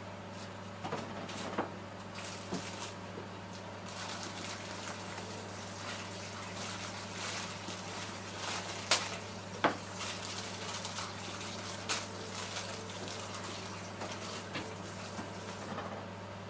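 Kitchen handling sounds while cooking: scattered light knocks and clicks of utensils and dishes, two sharper knocks near the middle, over a steady low hum.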